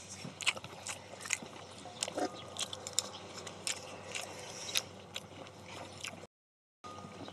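Close-up eating sounds: people chewing mouthfuls of stir-fried pork and rice, with many short wet mouth clicks and the odd light click of chopsticks on steel bowls. The sound cuts out completely for about half a second near the end.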